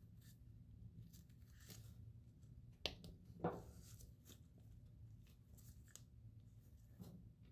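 Quiet handling noises: faint rustling and scraping, with two short sharp clicks about three seconds in, half a second apart.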